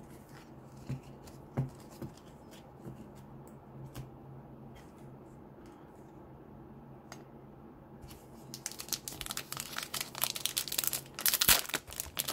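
A few faint taps as cards are handled, then, about eight and a half seconds in, dense crinkling and tearing of a foil trading-card pack wrapper being opened.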